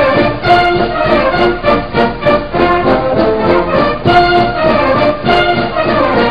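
Brass and orchestral music with a steady beat of about two strokes a second.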